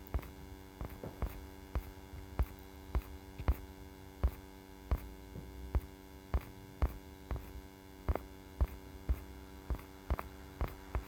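Computer mouse clicking, about two clicks a second at a slightly uneven pace, over a steady electrical mains hum.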